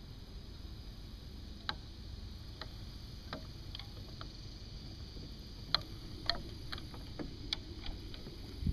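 About a dozen faint, irregular clicks and light knocks over a low steady rumble, more of them in the second half, as a manatee rubs against a boat's trolling motor and pushes the boat around.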